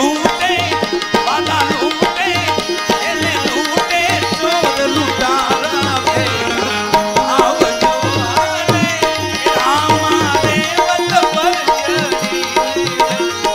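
Gujarati devotional bhajan music: a tabla beat under a wavering melodic line.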